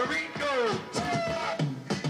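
Music: a looping track of sliding tones that sweep downward and then hold steady, the pattern repeating about every two and a half seconds.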